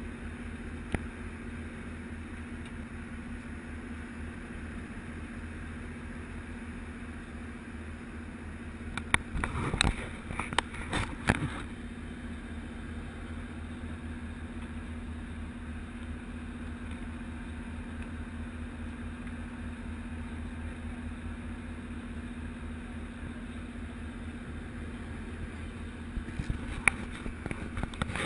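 A boat's engine running steadily at idle, a low even hum. A quick cluster of knocks and clatter comes about nine to eleven seconds in, and a few more near the end.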